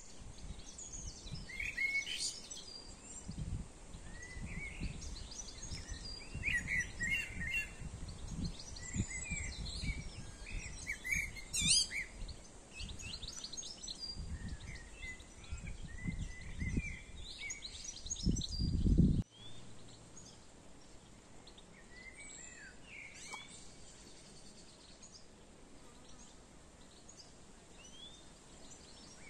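Small birds chirping and singing, many short calls over each other, above an uneven low rumbling noise. About two-thirds of the way through the rumble cuts off abruptly, leaving fainter birdsong.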